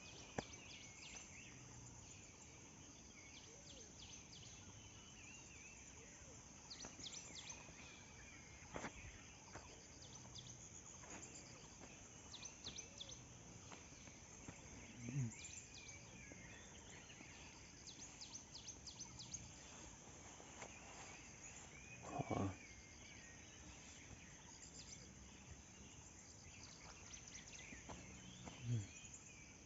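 Rural outdoor ambience: a steady high insect drone with scattered bird chirps throughout. Three short, low animal calls stand out, about halfway through, two-thirds through and near the end.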